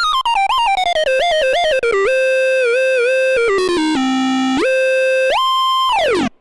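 Monophonic synth lead from a Mopho-style patch on the Nord Stage, one note at a time with smooth glides between pitches. It opens with a fast run of short notes falling in pitch, moves to held notes linked by glides, and ends in a long downward pitch slide that stops suddenly.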